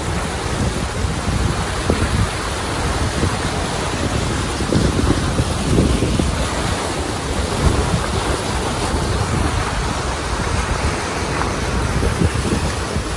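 Floodwater rushing and splashing along the side of a vehicle as it drives through a flooded street, with wind buffeting the microphone.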